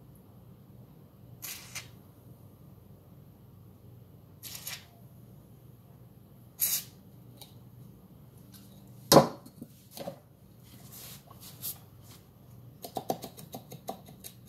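Short hisses from an aerosol can of penetrating oil sprayed through its straw into a go-kart wheel hub, three brief bursts in the first seven seconds. About nine seconds in there is one loud knock, followed by a few softer knocks and a quick run of clicks and clatter near the end as the wheel is handled.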